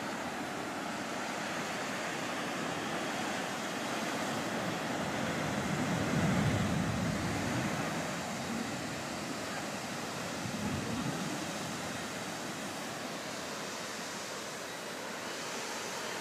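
Ocean surf washing steadily on the beach, with two louder swells about six and eleven seconds in.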